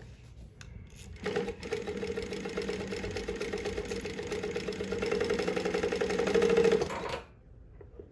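New-Tech GC-0303D direct-drive walking-foot industrial sewing machine stitching through heavy twill fabric. It starts about a second in, runs at a fast, even stitch for about six seconds, getting a little louder near the end, then stops, leaving the needle down under its needle-positioning system.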